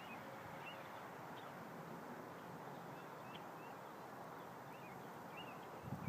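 Faint birds chirping, short calls repeated every second or so over a steady outdoor background hiss. A louder low rumble starts right at the end.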